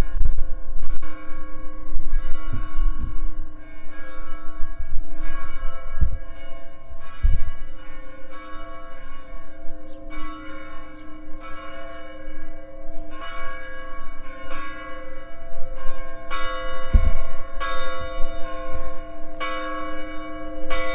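Church bells ringing in a steady peal, about three strokes every two seconds, the ringing of each overlapping the next into a continuous hum. A few low thumps come through about six, seven and seventeen seconds in.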